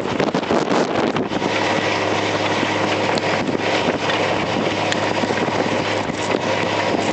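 Blizzard wind blowing hard across the microphone, a loud steady rush. A steady low hum joins about a second in.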